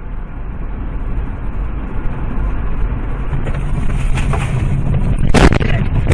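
Car driving at speed: steady engine and road noise that grows louder, with a brief rushing hiss about four seconds in as a tractor passes close by. About five and a half seconds in come loud thuds and rattling as the car leaves the road and jolts over rough ground.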